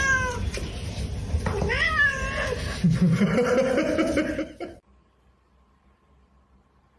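Domestic cat meowing: a long meow falling in pitch at the start, a second meow rising then falling about two seconds in, then a lower, drawn-out yowl. The sound cuts off abruptly about five seconds in, leaving near silence.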